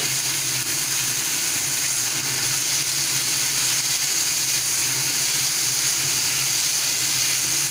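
Minced chicken and chopped onion sizzling in hot oil in a non-stick frying pan while a spatula stirs them, a steady hiss over a steady low hum.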